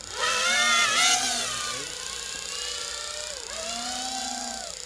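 FPV quadcopter's motors whining in flight, rising and falling in pitch as the throttle is worked. The whine surges loudest about a quarter second in and eases off a little before the two-second mark.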